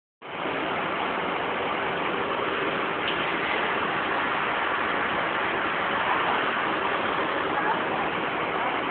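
Fire engine idling: a steady, even engine rumble with hiss over it and no change in pace.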